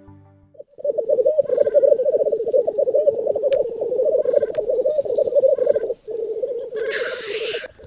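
Male black grouse at the lek giving their continuous bubbling, cooing display song. A loud hissing call breaks in about seven seconds in.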